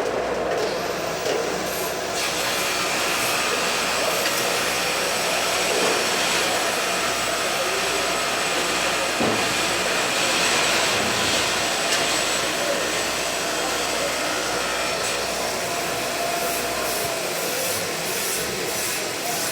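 MIG welder arc running in a long continuous bead on steel: a steady dense sizzle and crackle, easing near the end into a few short crackling bursts.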